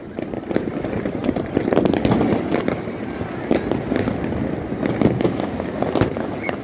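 Many fireworks and firecrackers going off at once: a dense, continuous crackle and popping with sharp bangs every fraction of a second, a few louder cracks standing out, the loudest about two, five and six seconds in.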